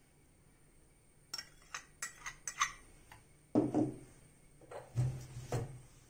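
A quick run of light clicks and taps, a steel spoon and a bowl knocking against a clay pot as curd is tipped in, followed by two duller knocks about a second and a half apart.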